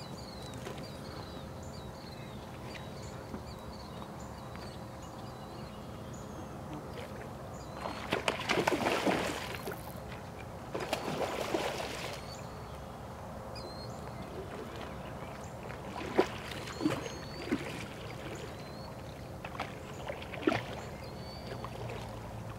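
A hooked fish splashing at the surface at the bank as it is brought to a landing net: two bursts of splashing about eight and eleven seconds in, then a few short, sharp splashes near the end. Faint bird chirps throughout.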